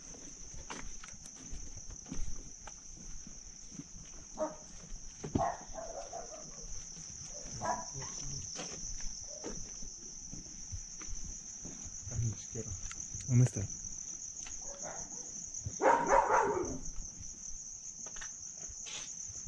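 Crickets chirping in a steady high trill, with scattered footstep-like clicks. A few short, louder sounds stand out over them, the loudest about three-quarters of the way through.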